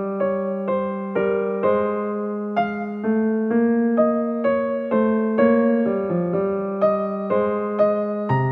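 Background music on solo piano: an even run of notes, about two a second, each ringing and fading before the next.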